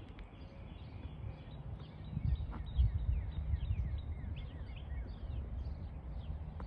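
Birds chirping: many short, falling high-pitched chirps repeat throughout, over a steady low rumble.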